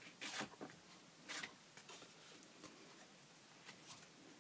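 Faint scuffs and rustles of a greyboard journal page being laid on a Gelli gel printing plate and pressed down by hand to pick up leftover paint, with two short scrapes, one near the start and one about a second and a half in.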